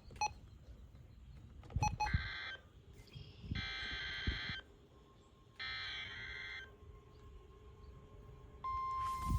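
NOAA Weather Radio receiver sounding an Emergency Alert System alert: after a couple of clicks, three bursts of screeching SAME digital header tones about a second apart, then the steady 1050 Hz warning alarm tone starting near the end. The alert is a severe thunderstorm warning.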